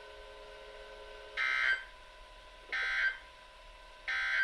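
Three short, harsh digital data bursts of an EAS/SAME end-of-message signal received on NOAA Weather Radio, each about a third of a second long and a little over a second apart, marking the close of the Required Weekly Test. Under them is a faint steady hum with thin tones.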